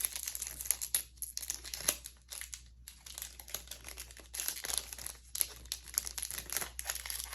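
Foil wrapper of a Yu-Gi-Oh! booster pack crinkling as it is handled and torn open, in a run of short crackles with a brief lull partway through.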